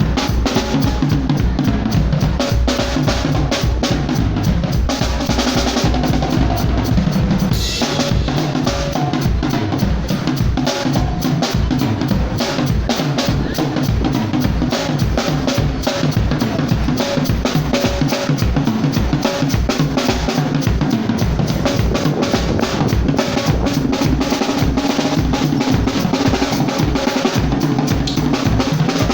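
Drum kit played continuously in a busy groove, with kick drum, snare and rimshot hits packed close together and a brief break in the pattern about eight seconds in.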